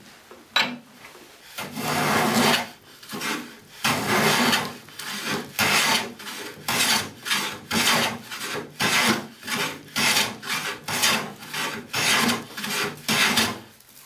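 Hand plane shaving the edges of softwood boards in repeated strokes: two long strokes near the start, then shorter, quicker ones about two a second.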